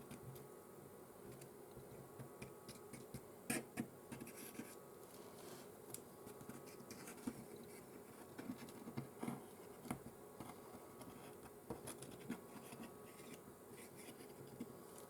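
Faint steady hum with scattered light clicks and taps from small tools and phone parts being handled on a repair bench while glue is spread.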